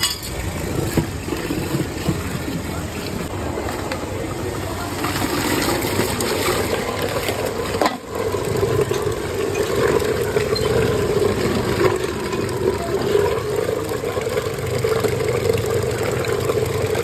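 Electric lassi churner running steadily, its spinning wooden shaft churning curd in a metal pot, a constant motor hum. The sound dips briefly about halfway through, and the hum is stronger and steadier after that.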